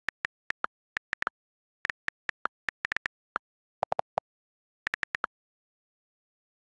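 iPad on-screen keyboard key clicks during fast, uneven typing, with total silence between the taps. A few clicks about four seconds in sound fuller and lower. The clicking stops a little after five seconds.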